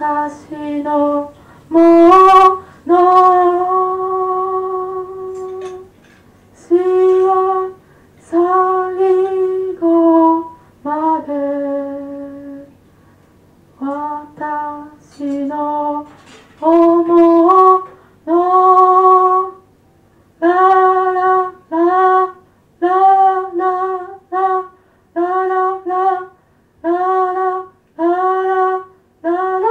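A lone high voice singing a slow melody of separate held notes, each starting with a slight upward slide; in the second half the notes turn shorter and come about one a second. A faint steady low hum lies underneath.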